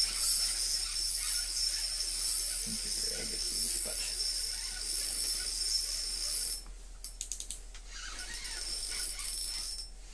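Ice-fishing reel being cranked fast, a steady ratcheting whir as a hooked fish is reeled up; it stops about six and a half seconds in.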